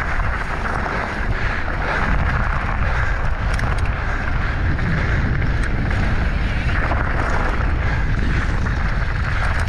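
Steady wind buffeting the microphone, a rushing noise with a heavy low rumble.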